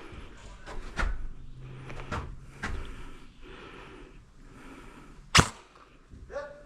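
Airsoft guns firing single shots: a few light snapping shots, then one much louder, sharp snap about five seconds in.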